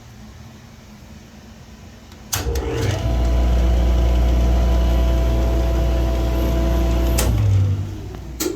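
Baileigh IJ-666-HH helical-head jointer switched on with a click about two seconds in, spinning up and running steadily for a few seconds with a loud, even motor and cutterhead hum, then switched off with a click and winding down.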